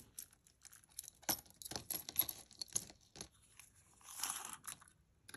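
Small clicks and light clinks of a necklace and other jewelry being handled and laid out for measuring, with a brief rustle about four seconds in.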